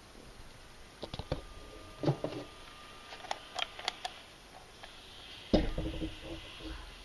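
Scattered clicks and light knocks, with one heavier thump about five and a half seconds in, over a low room background.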